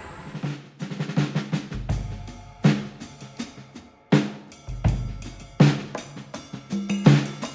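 Background music: a drum kit beat, snare and cymbal hits over a deep kick drum that lands about every three seconds.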